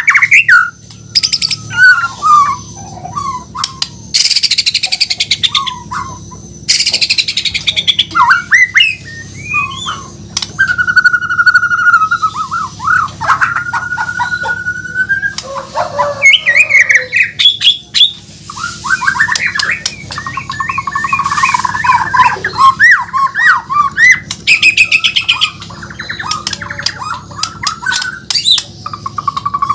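A Bornean murai batu (shama) singing a long, varied song: rapid rattling trills, sliding whistled notes and harsh buzzy phrases, with a long held whistle about halfway through.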